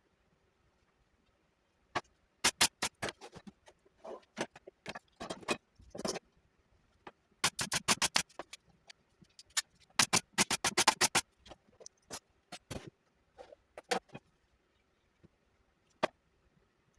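Irregular bursts of sharp clicks and taps, several rapid strokes at a time, separated by short quiet gaps, with a few single clicks near the end.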